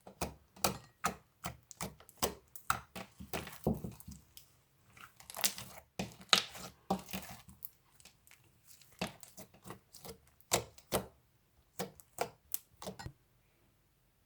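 Slime being pressed and squeezed by hand, giving a quick run of sharp clicks and pops, about two or three a second, which stop near the end.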